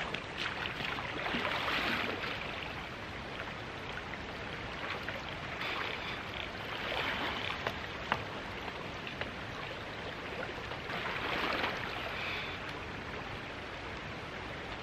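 River water running steadily, with three louder swells of noise and a single sharp click about eight seconds in.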